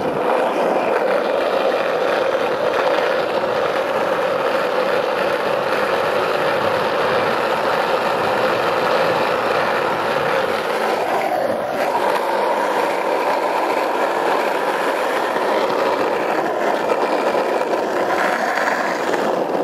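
Skateboard wheels rolling fast down an asphalt hill: a steady rolling rumble whose pitch steps up about twelve seconds in.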